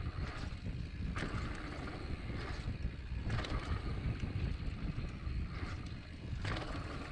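Wind rushing over the microphone of a GoPro worn by a mountain biker riding down a dirt trail, with low rumble and rattle from the tyres and bike over the ground.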